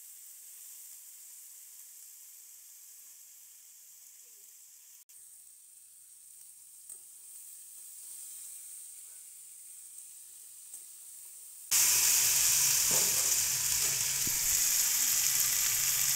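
Diced potatoes frying in hot oil in a metal kadai: a faint, steady sizzle with the odd light scrape of the metal spatula. About twelve seconds in, the sizzle turns suddenly much louder, with a few sharp taps of the spatula against the pan.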